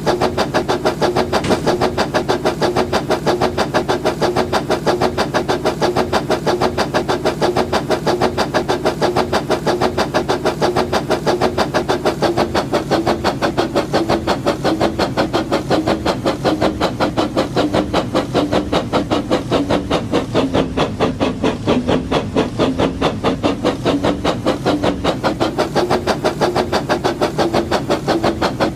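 Battery-powered toy brick train running: a steady motor hum with a rapid, even clatter that never stops, its pitch wavering slightly.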